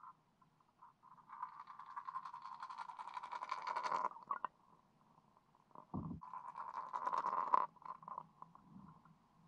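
Muffled underwater fizzing and gurgling of the surface churned by a wake-bait rat lure swimming overhead, heard through a submerged camera housing. It comes in two stretches of two to three seconds each, with a dull knock between them.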